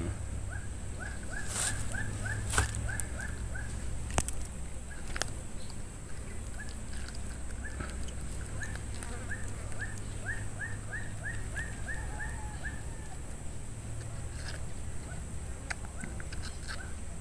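An animal calling in runs of short, high chirps, about four a second: one run in the first three seconds and a longer one from about seven to twelve seconds in, with a few sharp clicks between.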